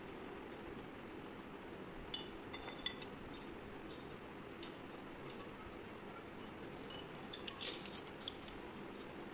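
Steel flat bar clinking against a homemade lever-type flat bar bender as it is fitted in and bent. There are a few sharp metallic clicks between two and three seconds in and a cluster near eight seconds, over a steady low hum.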